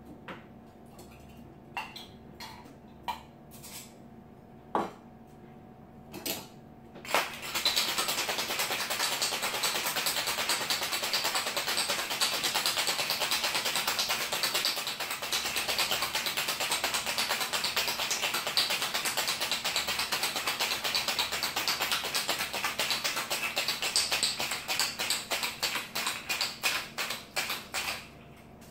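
Ice rattling hard inside a metal cobbler cocktail shaker, shaken vigorously for about twenty seconds. Before it come a few separate clinks and knocks as the shaker is handled and capped. Near the end the rattle breaks into distinct strokes before it stops.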